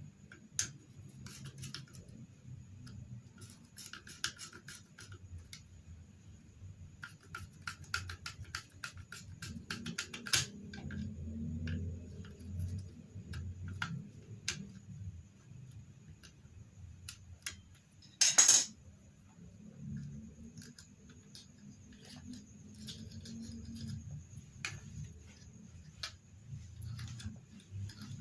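Scattered clicks, taps and scrapes of small hard objects being handled, in irregular clusters, over a faint low hum, with one louder rustling burst about eighteen seconds in.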